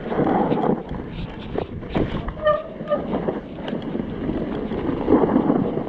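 Mountain bike rolling fast down a snowy trail: tyres running through snow, with the bike rattling and knocking over bumps and wind on the microphone.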